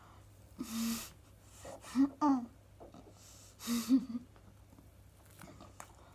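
A boy with a huge marshmallow stuffed in his mouth, breathing hard and making short muffled vocal sounds through it. There is a breathy burst about half a second in, two brief muffled hums around two seconds, and another breathy burst with a hum near four seconds.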